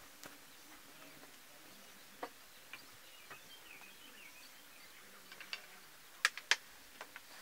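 Quiet outdoor ambience with faint bird chirps and a few scattered sharp taps and knocks; the two loudest knocks come close together near the end.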